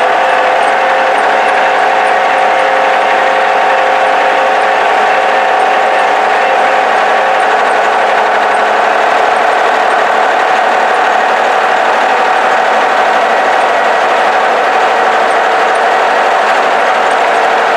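Case 1030 tractor engine running steadily, heard from inside the cab, with a loud, even drone that holds its pitch throughout.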